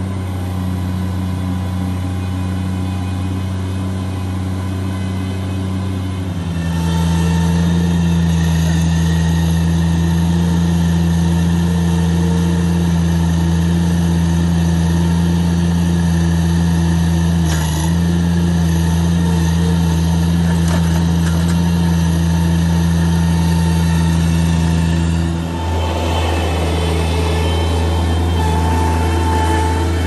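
Bobcat stand-on mini track loader's engine running steadily, throttled up and louder about six seconds in as the machine works, with a brief dip near the end before it carries on.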